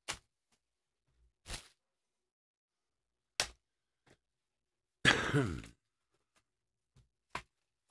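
Hands handling a cardboard trading-card hobby box: a few short taps and knocks, and about five seconds in a brief louder rip as the box's lid is pulled open.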